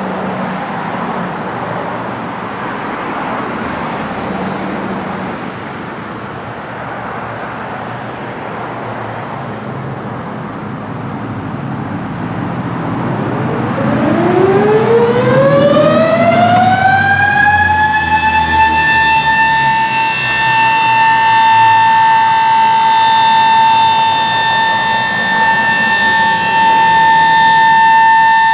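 Street noise, then about halfway in a Sterling M-5 electromechanical warning siren winds up, its pitch rising for about five seconds before it holds one steady, loud tone: the steady Alert signal of its weekly test.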